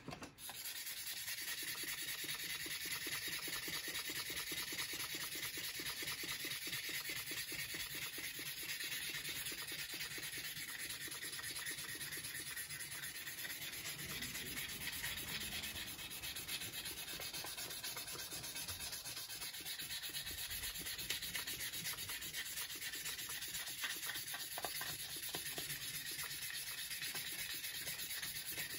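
Sandpaper rubbed by hand back and forth over the steel face of a small anvil, a steady rapid scratchy hiss, taking off surface rust.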